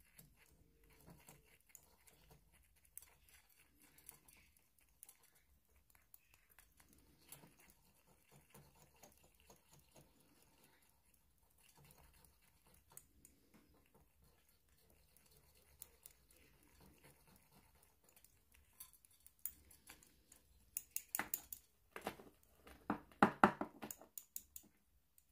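Thin stirring stick scraping and clicking against a small glass jar as powder is mixed, faint at first, then a quick run of louder clicks near the end.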